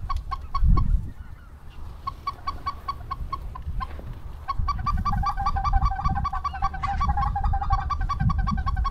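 Snow goose calls: quick, repeated high yelping notes, sparse at first and then many overlapping from about halfway through. A low rumble of wind on the microphone runs underneath.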